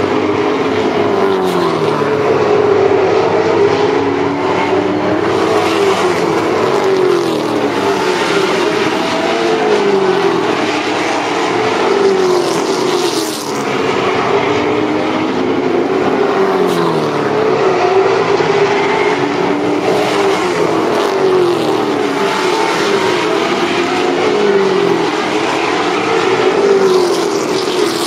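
A field of late model stock cars racing around a short oval, their V8 engines running at racing speed. Several engine notes overlap, each sweeping down and back up in pitch again and again as the cars circle the track.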